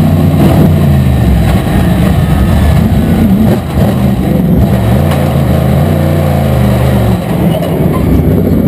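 Onboard sound of a NASCAR modified race car's carbureted V8 engine running loud, its pitch rising and falling as the throttle comes on and off through the turns. Near the end the steady engine note breaks up as the car slows.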